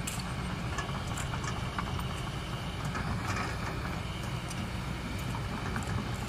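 Large diesel engine running steadily, a low even rumble, with a few light clicks on top.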